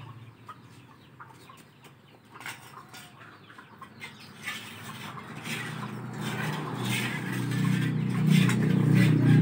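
Chickens clucking, with scattered light taps and scrapes. A low, steady hum builds up over the second half and is the loudest sound near the end.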